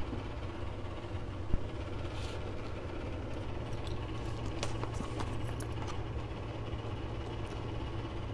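A steady low hum, with a few light clicks and taps of metal chopsticks against a plastic sushi tray.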